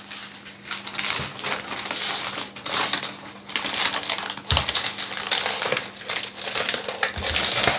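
Plastic protective wrap on a silicone heating pad crinkling and crackling as it is handled, in a run of irregular clicks and rustles.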